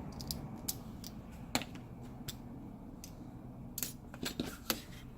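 Small scissors snipping a strip of adhesive tape to size: a run of short, sharp snips at an uneven pace, with a few close together near the end.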